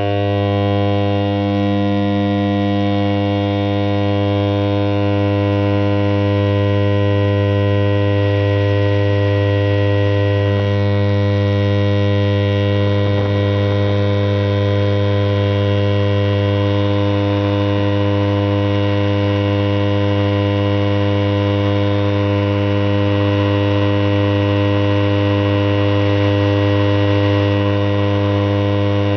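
Steady, loud electrical hum from the homemade vortex gun rig: a low drone with many buzzy overtones that holds one unchanging pitch.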